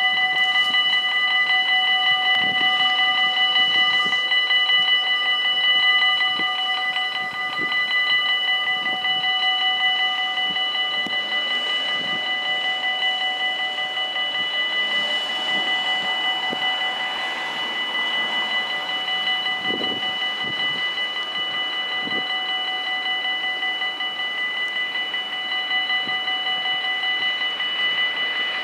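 Electric warning bells of a Dutch automatic half-barrier level crossing ringing continuously, a rapid, steady metallic ringing: the signal that a train is approaching and the barriers are down or coming down.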